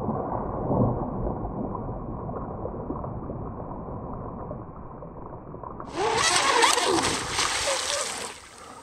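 RC speedboat running fast on open water, its hull slapping and throwing spray. About six seconds in the sound turns suddenly louder and brighter for about two seconds, then drops away.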